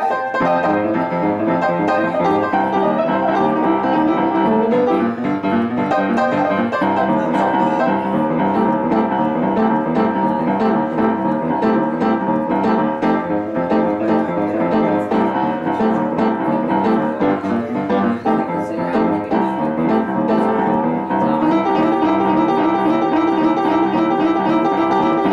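Solo acoustic piano played without a break, chords and melody together.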